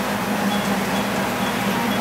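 O scale model passenger train running on the layout: a steady hum with the rumble of its wheels on the track.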